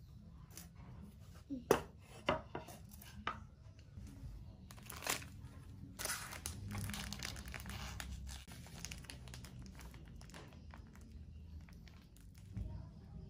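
A few sharp knocks of a wooden cutting board set down on a hard floor, then the crinkling and tearing of the thin plastic wrapping on a block of tempeh as it is handled and opened.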